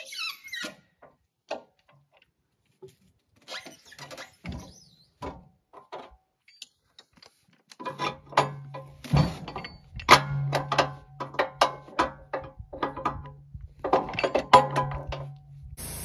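An incense cedar log is levered and rolled with a cant hook on the steel bed of a Wood-Mizer LT15 sawmill, giving scattered wooden knocks, creaks and squeaks, with a short falling squeal right at the start. From about halfway the knocks and scrapes come thick and fast over a low steady hum.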